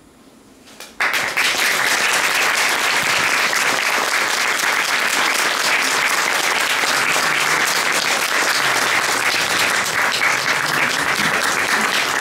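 Audience applause breaking out suddenly about a second in, then continuing steadily.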